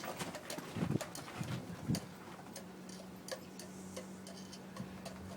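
Scattered light clicks and ticks, with a few soft low thumps in the first two seconds, over a faint steady hum that comes in about two seconds in.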